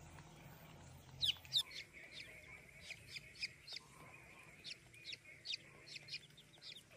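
Young chicks peeping: two loud, quickly falling chirps a little over a second in, then a run of softer peeps, several a second.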